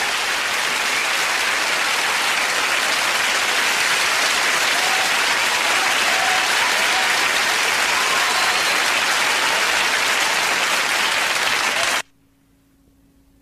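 Sitcom studio audience applauding steadily. The applause cuts off suddenly near the end.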